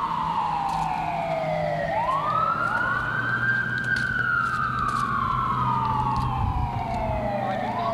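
Fire engine siren wailing, falling slowly in pitch over several seconds, then winding back up about two seconds in and again near the end, with a second rise just behind each. A low steady truck-engine drone runs beneath it.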